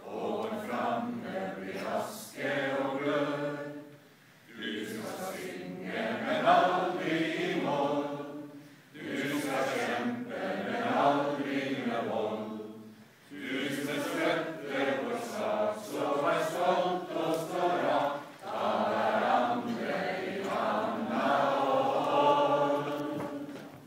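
A large group of people singing together as a crowd choir, in phrases of about four to five seconds with short breaks between them; the song ends just at the close.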